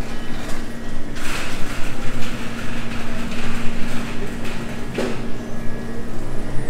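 Background noise of a quick-service food and drink area: a steady hum, with a rush of hiss starting about a second in and a sharp knock near five seconds.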